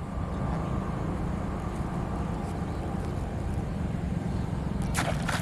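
A steady low rumble, like a distant engine or wind on the microphone. About five seconds in, a short sharp burst of noise.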